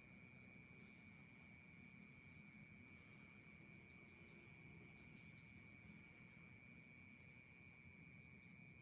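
Faint night insects, crickets among them, chirping in a rapid, even, continuous pulse train, over a steady high-pitched tone and a low background rumble.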